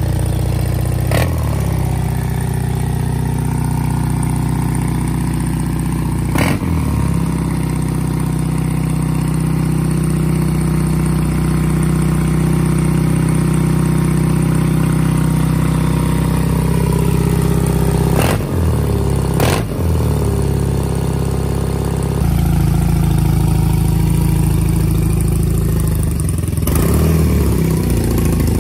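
BMW R80's air-cooled flat-twin boxer engine running steadily at idle after a cold start, with a few brief sharp sounds, two of them close together about two-thirds of the way in.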